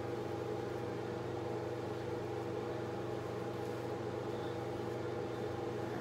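A steady hum of several unchanging low tones, a constant machine or electrical background noise, with nothing else standing out.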